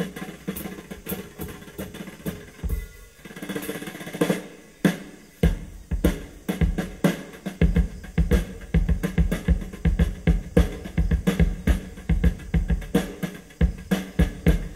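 A drum track of kick, snare and other drums played loud through a PA speaker stack: a single 18-inch subwoofer cabinet with two 15-inch mid drivers, as a sound test. After a short break a few seconds in, a steady kick-heavy beat with deep bass comes in.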